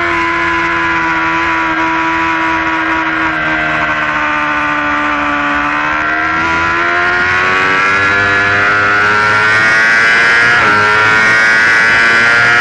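Yamaha R6 sport bike's inline-four engine running at speed: the engine note sags slightly as the bike slows through a long corner, then climbs steadily as it accelerates hard out of it, growing louder near the end.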